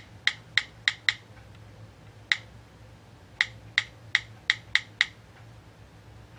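Key-press click sounds of the iPhone Keyboard Free app, played through a Samsung Galaxy S2's speaker as letters are tapped on the touchscreen. About eleven short, sharp clicks come in quick runs, with pauses of about a second between them.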